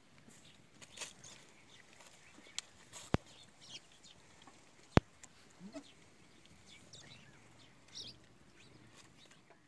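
Goats bleating in short, scattered calls while kids suckle at a nanny goat. Two sharp clicks about two seconds apart are the loudest sounds.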